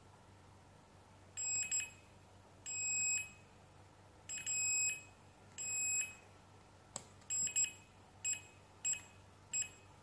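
A Fluke 179 multimeter's continuity beeper sounds in a series of about eight beeps of one pitch, some held about half a second and some short, as the test probes touch points on a circuit board. Each beep marks a closed, low-resistance path between the probes. A single sharp click comes about seven seconds in.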